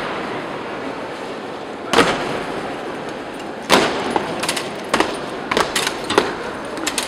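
Marching soldiers' boots stamping on a stone floor in slow goose step: two single heavy stamps about two seconds apart, then quicker, closer stamps in the last three seconds as more of the guard step in. They ring out in a large stone hall over a steady crowd hum.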